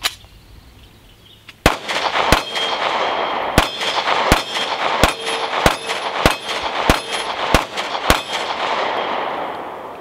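Sccy 9mm semi-automatic pistol fired in a steady ten-shot magazine dump, starting about a second and a half in, with shots roughly two thirds of a second apart and echo ringing on between them. All ten rounds fire and feed without a stoppage.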